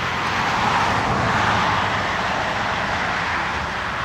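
A loud, steady rushing noise that swells up just before and holds with no clear pitch, either a vehicle passing on the nearby road or rushing water from the rapids.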